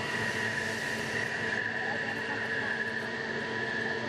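Steady machinery running: a continuous hum with a high steady whine over an even noise, with no separate knocks or changes.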